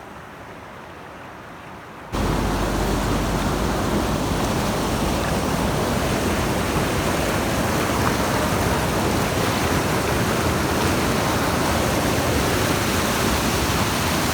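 Water rushing over rocks in a small river cascade: a steady rush that jumps abruptly much louder about two seconds in and then holds even.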